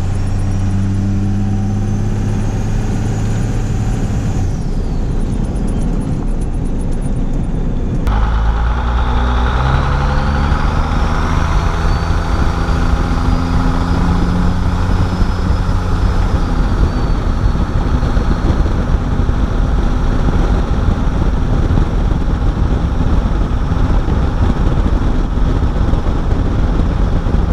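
First-gen 12-valve Cummins 5.9 inline-six turbo diesel pulling under throttle, with a high turbo whistle. The whistle climbs as the turbo spools, drops away about four seconds in, then rises again with the engine revving up from about eight seconds in. It holds, then fades out late on as the truck settles into a steady, loud diesel drone.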